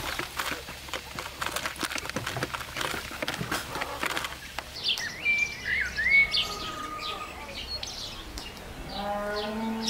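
Quail pecking at feed around a bottle feeder, a quick run of small taps and clicks in the first half. Birds then chirp and whistle with short gliding notes, and a lower drawn-out call comes near the end.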